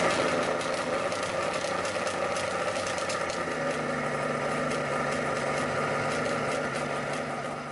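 An engine idling steadily, fading away near the end.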